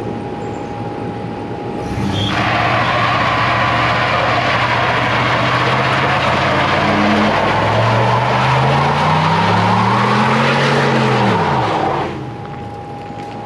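Ford F-250 pickup's V8 doing a burnout. About two seconds in, a rear tire breaks loose and screeches for about ten seconds while the engine holds revs, then revs climb and fall back before the screech cuts off suddenly and the engine drops to idle. The driver takes it that only one rear tire was spinning.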